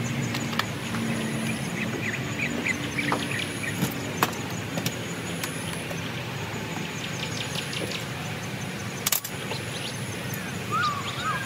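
Small birds chirping in short bursts over a steady low rumble like distant traffic, with a few sharp clicks, the loudest about four seconds in and near nine seconds.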